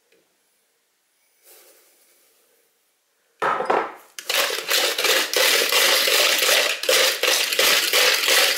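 Coil hand whisk with a wire spiral beating stiff egg whites and sugar in a ceramic bowl: rapid, continuous strokes of the wire against the bowl, starting about three and a half seconds in after near silence. The sugar is being whisked in until it dissolves into a glossy meringue.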